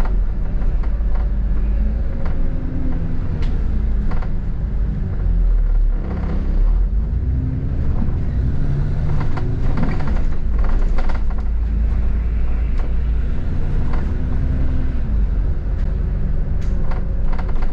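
Cabin noise aboard a double-decker bus on the move: a steady low rumble, with the drivetrain's note rising and falling in pitch several times as the bus speeds up and slows. A few short knocks and rattles come through, more of them near the end.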